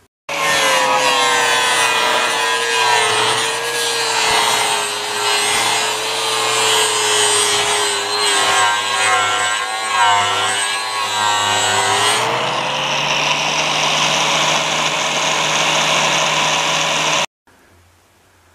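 Angle grinder running over a softwood formwork board, roughly grinding the surface to make it look like an old beam. Its whine wavers and sags as the disc is pressed into the wood, turns steadier and hissier about twelve seconds in, and stops abruptly near the end.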